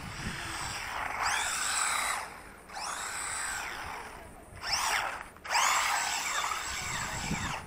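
Wltoys A959 RC buggy's electric motor whining in four bursts of throttle, its pitch rising as it speeds up and falling as it lets off. The loudest bursts come about five seconds in, as the buggy passes close to the ground-level camera.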